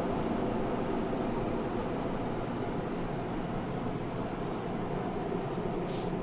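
A steady mechanical hum with hiss, with a few faint light clicks.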